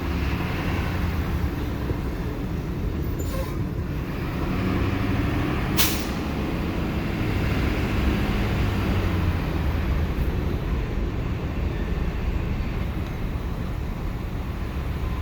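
Box truck engine and road noise heard inside the cab, a steady low rumble. A brief sharp noise cuts through about six seconds in, with a fainter one a few seconds earlier.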